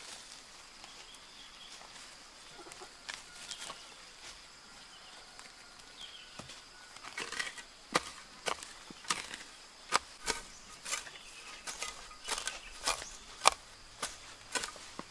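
A metal garden hoe chopping into soil and weeds: a few scattered strikes at first, then a quick irregular run of sharp strikes from about halfway.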